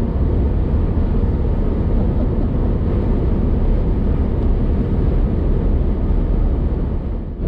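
Steady engine and road noise inside the cab of a Toyota Hilux pickup while driving, a dense low rumble with hiss above it, dipping briefly just before the end.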